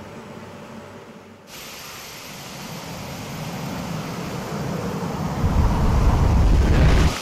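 Concrete being pumped out through a concrete pump's delivery hose onto a floor slab: a rushing hiss starts about a second and a half in and grows louder. A heavy low rumble joins it for the last second and a half and cuts off suddenly.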